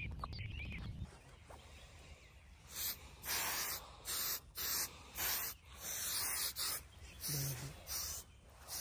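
A spray bottle hissing out a mist in about eight short, quick sprays onto a hunter's ghillie suit, starting about three seconds in.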